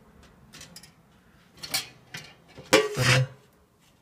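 Pop-up toaster's lever and bread carriage being pulled down by hand. There is a light metallic click a little under two seconds in, then a sharper, louder metal clack near three seconds.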